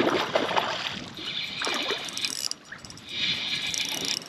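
A hooked golden trout splashing and thrashing at the water's surface in the first second. After that comes the whirr of a spinning reel being cranked in two short spells.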